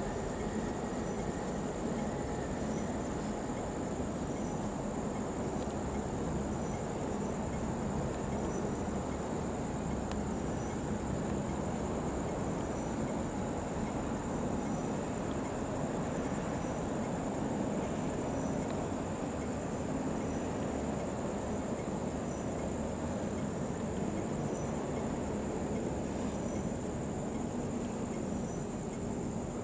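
Crickets chirring in a steady high trill, with a fainter chirp repeating about once a second, over a low steady rumble.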